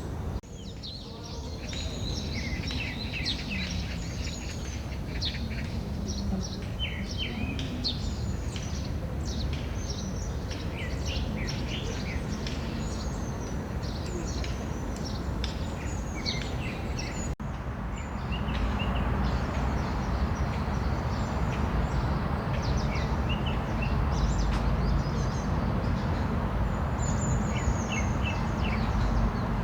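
Many small birds chirping and trilling in quick, overlapping calls over a steady low background rumble. About halfway through there is an abrupt break; after it the bird calls thin out and the rumble gets louder.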